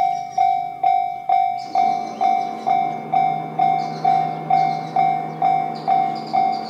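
Japanese railway level-crossing alarm ringing its repeated 'kan-kan' tone about twice a second, each strike fading before the next, warning that a train is coming as the barriers come down. From about two seconds in, a low rumble of the approaching train builds beneath it.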